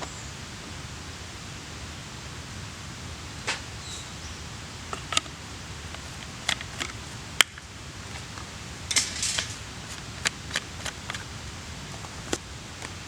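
Wood campfire crackling: irregular sharp pops, a quick cluster of them about nine seconds in, over a steady hiss.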